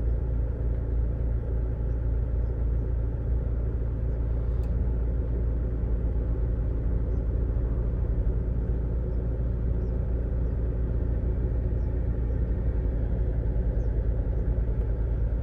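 2018 Toyota Hilux diesel engine idling steadily, with a cylinder 1 misfire (code P0301) that the mechanic puts down to the number 1 injector.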